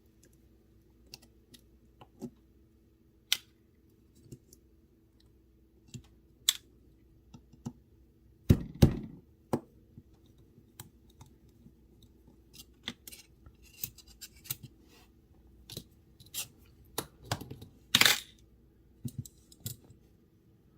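Scattered light clicks and taps of small metal knife parts and tools being handled and set down on a work surface, with two louder knocks, one about eight and a half seconds in and one near the end.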